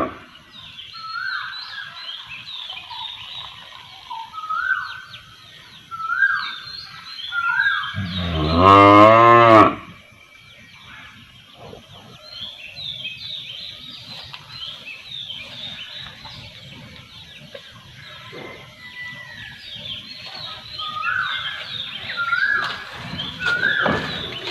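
A cow moos once, long and loud, about a third of the way through. Repeated short high chirps go on throughout at a lower level.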